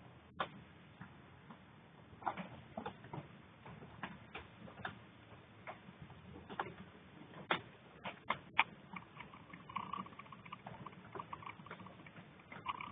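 Raindrops dripping and tapping irregularly onto a hard surface in typhoon rain, a few sharp ticks a second over a faint steady rush of wind and rain.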